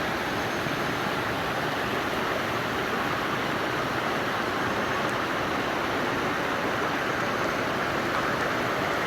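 Water flowing steadily in a small hillside stream, an even rushing sound with no breaks.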